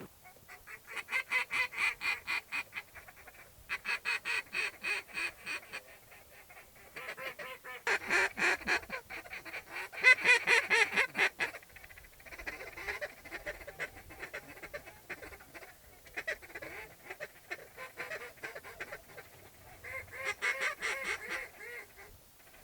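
Waterfowl calling in about a dozen bursts of rapid, repeated notes, each burst a second or two long.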